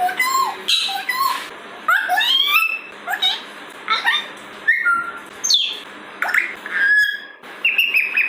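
Parrot calling in a rapid string of short whistles, chirps and squawks, many of them sliding up or down in pitch.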